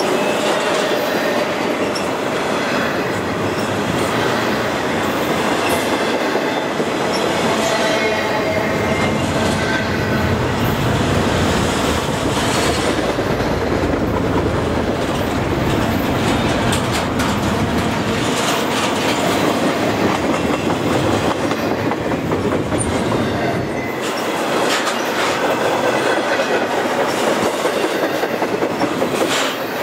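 Double-stack intermodal freight train of loaded well cars rolling past steadily, wheels clattering over the rail joints, with faint thin squeals from the wheels now and then.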